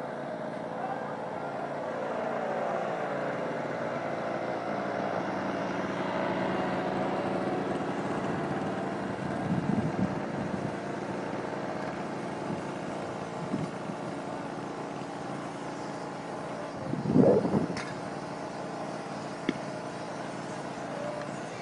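A kiosk burning fiercely at close range: a steady rumbling noise from the fire, with louder crackling flare-ups about ten seconds in and again, loudest, about seventeen seconds in, and a sharp crack near the end.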